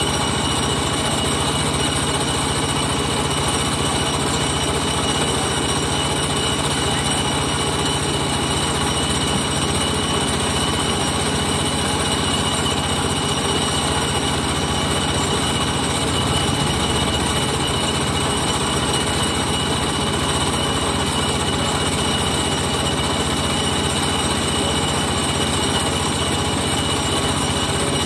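An engine running steadily at a constant speed, with a high steady whine over it.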